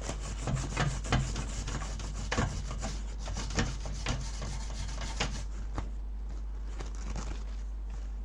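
Irregular scrubbing and scraping strokes on a circuit board, cleaning off sticky oily residue with isopropyl alcohol.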